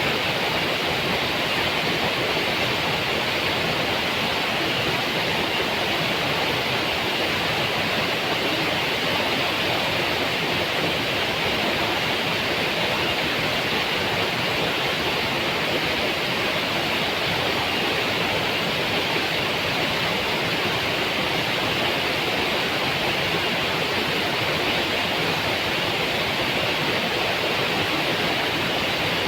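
Waterfall: falling water rushing in a steady, unbroken roar of noise.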